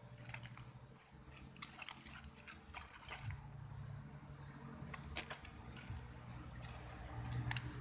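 Forest insects buzzing steadily in a continuous high chorus, with scattered short clicks and rustles and a low hum underneath.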